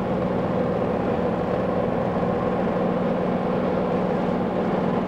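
Light aircraft's piston engine and propeller droning steadily, heard from inside the cockpit, with no change in pitch.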